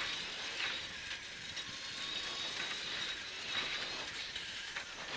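Cabin noise of a cross-country rally car running fast over a rough dirt track: a steady drive noise with a thin high whine, and scattered rattles and knocks from the car over the bumps.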